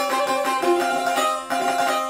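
Solo çifteli, the two-stringed Albanian long-necked lute, plucked fast in a Tropoja dance tune: a quick-changing melody over a steady drone note, with a brief break about one and a half seconds in.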